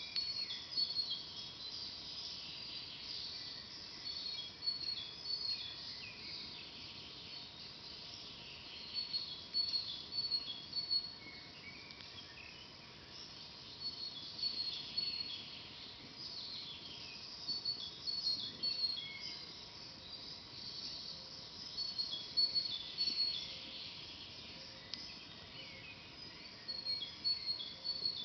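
Forest birds chirping and singing in short high phrases that come back every few seconds, over a steady low hiss.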